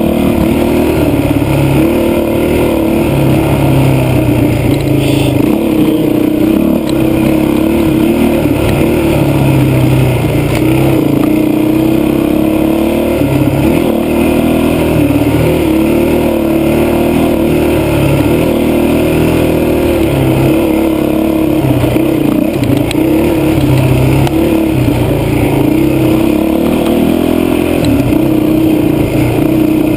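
2005 Honda CRF450X's single-cylinder four-stroke engine running under load on a dirt trail, its pitch rising and falling as the throttle is opened and rolled off.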